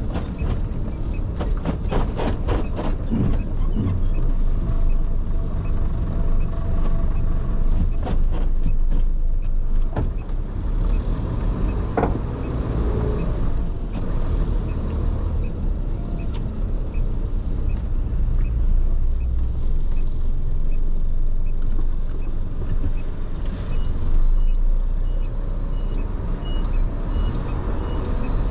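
Tractor-trailer truck running with a steady low engine and road rumble, with a run of sharp clicks in the first few seconds. Near the end a high electronic beep starts repeating about once a second.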